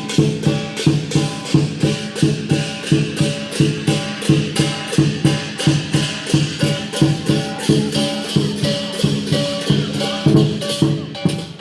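Lion dance percussion: drum, cymbals and gong playing a fast, steady beat of about three to four strokes a second.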